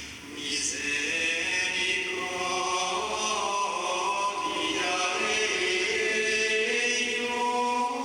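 Male voices of a monastic community singing Gregorian chant together, growing louder about half a second in and carrying on steadily.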